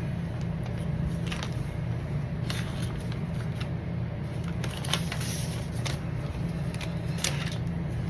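Scattered rustles and clicks of trading-card packaging being handled, over a steady low hum.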